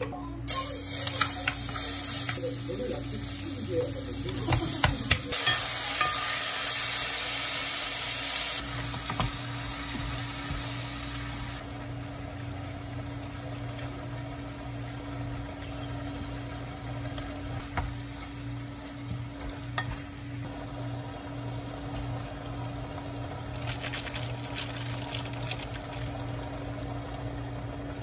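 Onion, garlic and chicken frying in hot oil in a frying pan. A loud sizzle in the first eight seconds or so drops to a quieter steady sizzle, with a few seconds of stirring near the end and a low steady hum underneath.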